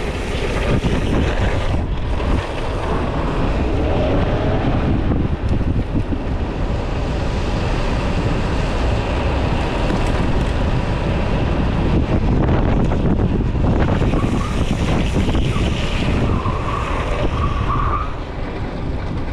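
Heavy wind rushing over the microphone and the rumble of skateboard wheels rolling fast on asphalt during a downhill run. Near the end, a squeal lasting a second or two as the rider slides the urethane wheels hands-down through a hairpin corner.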